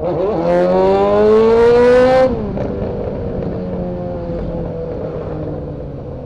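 Yamaha XJ6's inline-four motorcycle engine through a bare exhaust pipe with no silencer, revving up under acceleration, its pitch rising for about two seconds. The throttle then shuts abruptly and the engine runs on steadily at lower revs.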